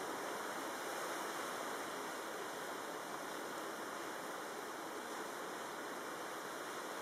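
Strong tropical-storm wind blowing steadily across open coast, an even rushing noise of wind through shrubs and over choppy water, with no separate gusts or impacts standing out.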